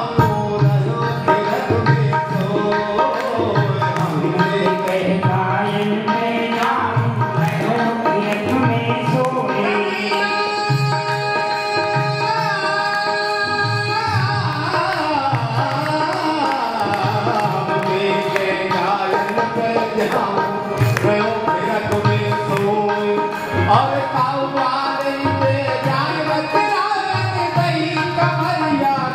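Devotional song from a Raas Lila: singing over a hand drum beating a steady rhythm, with held accompanying notes underneath.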